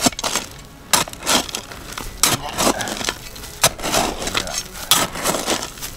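Digging into loose volcanic cinders: the blade bites and scrapes through the gritty cinder over and over, a sharp crunch roughly every second, often in quick pairs.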